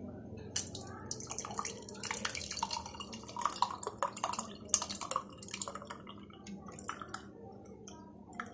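Milk-based watermelon sharbat poured from a jug into a stemmed glass, splashing and dripping in an uneven stream that starts about half a second in.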